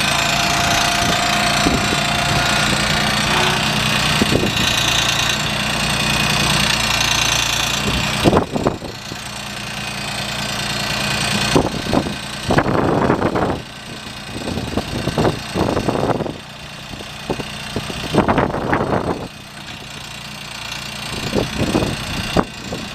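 Kubota F2560E mower's diesel engine running, steady and loud for about the first eight seconds. It then drops to a quieter run broken by irregular short surges.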